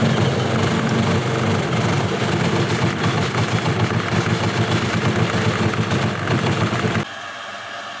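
Fisher & Paykel washing machine lying on its side, its Smart Drive motor turning the drum with an old VCR and 12-volt batteries inside, which clatter and bang loudly as a very unbalanced load. About seven seconds in it cuts to a quieter, steady machine hum.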